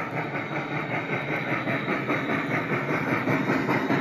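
MTH G-scale Big Boy model steam locomotive's onboard sound system chuffing in a quick, even rhythm as it runs past.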